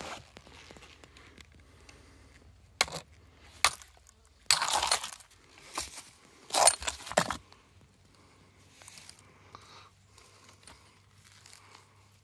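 Steel pry bar working a crack in a rock: two sharp metal-on-stone clinks about three seconds in, then longer scraping, crunching bursts as the rock is levered apart and splits, loudest about seven seconds in.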